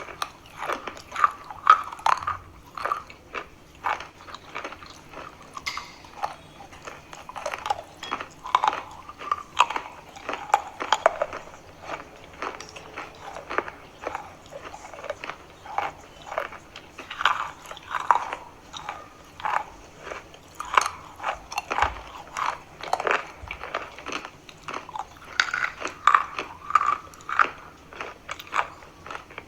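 A person biting and chewing chalk close to the microphone: many irregular crunches, tightly spaced all through.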